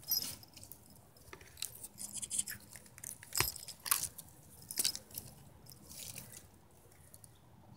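Close rustling and scraping on the phone's microphone as leaves, twigs and a kitten's fur brush against it: irregular crackles and soft scratches, a handful of them sharper.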